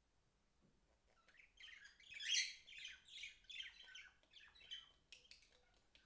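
Budgerigar chirping and warbling softly: a run of short, high chirps that starts about a second and a half in and trails off near the end.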